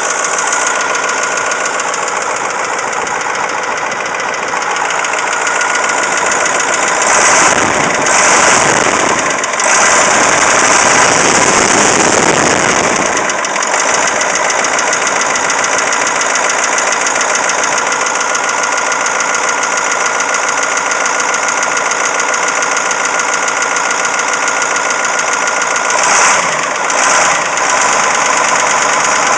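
Caterpillar 3208T turbocharged V8 diesel running with a persistent rattling knock, getting louder for several seconds a quarter of the way in and briefly again near the end. The owner suspects fuel or injector knock or a broken piston or rings, focused on cylinders 4 and 2, after the engine was run with the injection pump far too advanced.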